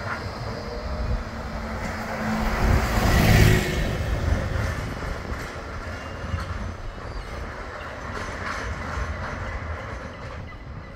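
Street traffic beside tram tracks: a double-decker bus goes by close, loudest about three seconds in, while a Bombardier Flexity 2 tram runs away along the street track. The rumble eases off toward the end.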